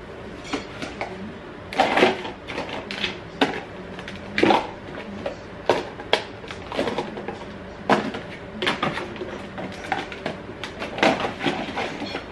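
Plastic food-storage containers and lids clattering and knocking as they are stacked into a wooden kitchen drawer: a string of irregular clacks, the loudest about two, four and a half, eight and eleven seconds in.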